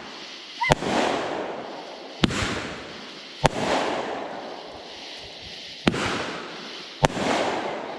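Fireworks going off: five sharp bangs at irregular intervals, each followed by a crackling hiss that dies away over about a second.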